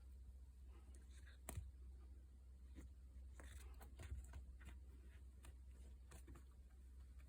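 Faint scattered taps and scuffs of a kitten pouncing on and batting at a toy, over a low steady hum; the sharpest taps come about one and a half seconds in and again about four seconds in.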